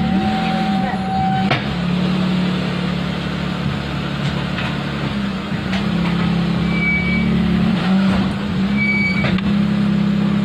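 Maruti Suzuki Alto being driven, with a steady engine and road hum and a few sharp knocks from the front suspension: the khat-khat noise over bumps that the owner traces to worn rubber lower-arm bushings.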